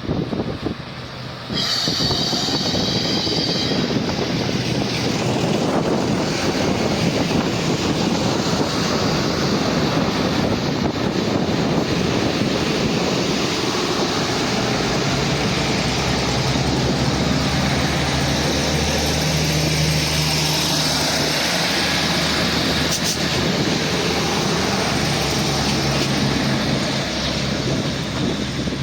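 Irish Rail 2600 Class diesel railcars running, with a brief high wheel squeal about two seconds in, then steady engine and rail noise.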